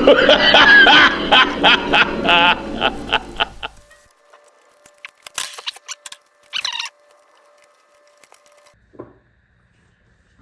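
A man's loud, mocking laughter in rhythmic bursts that come faster and faster, cutting off about four seconds in. Then a faint steady hum and a few soft clicks.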